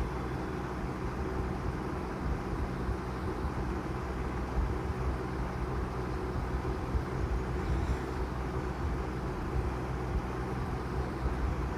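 Evaporative air cooler running: a steady low hum from its fan motor with an even rush of air.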